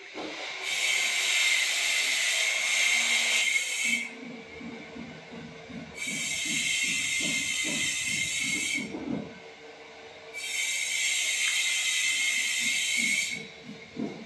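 Three bursts of loud hissing, each about three seconds long, starting and stopping sharply, with quieter low noise in the gaps between them.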